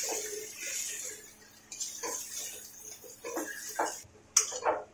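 A spoon stirring marinated chicken into masala in an iron kadai. A soft hiss fades over the first second, then the spoon knocks and scrapes against the pan in scattered clicks.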